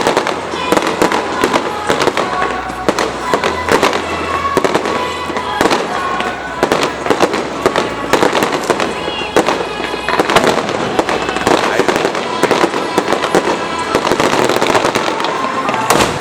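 Fireworks display: a dense, continuous run of sharp bangs and crackling bursts, many each second.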